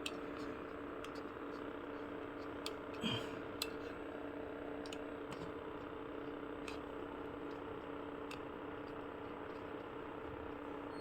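Faint scattered clicks and taps from small parts being handled on a workbench, over a steady electrical hum and hiss.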